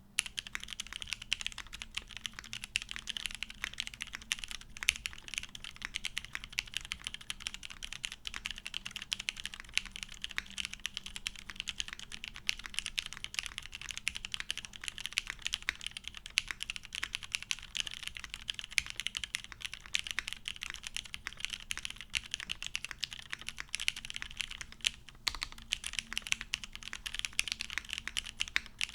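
Continuous fast typing on a top-mounted mechanical keyboard with lubed vintage Cherry MX Black linear switches in an aluminum plate, without foam: a dense stream of keystroke clacks with no tactile clicks, broken by a brief pause near the end.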